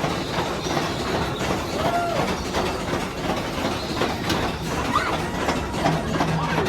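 Mine-ride train cars rattling and clattering along their track, with a couple of short squeals, about two and five seconds in.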